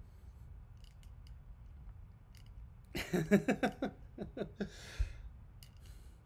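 A few faint clicks, then a short run of quiet, wordless mouth and voice sounds, mumbled with no clear words, followed by a breath out.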